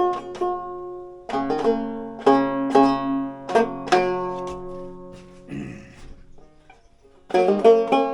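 Five-string banjo plucked in short passages, with notes left to ring and die away. There is a brief rustle about five and a half seconds in and a short pause, then quick picking starts again near the end, as the banjo is tried out after its neck has been reset.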